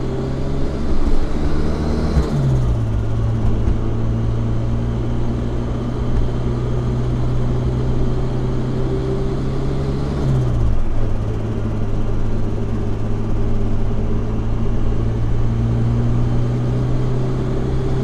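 Supercharged Honda S2000 four-cylinder engine pulling steadily under way, heard from the open cockpit with wind rush. Its pitch drops sharply twice, about two seconds in and about ten seconds in, as it is shifted up, with a short hiss at the first shift.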